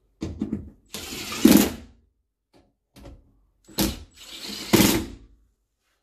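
Power driver running screws back into the hatch trim panel, in two spells of about two seconds each with a few short clicks between them.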